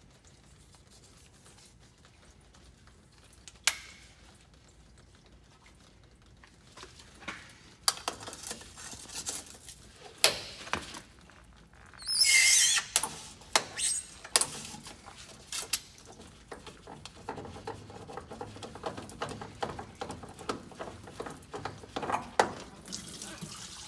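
Gloved hands handling and fitting a spin-on fuel filter: scattered clicks, taps and rubbing, with a louder rasping rub lasting about a second around twelve seconds in.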